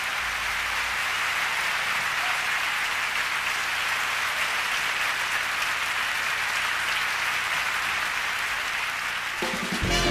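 Concert audience applauding steadily. Near the end a swing big band strikes up.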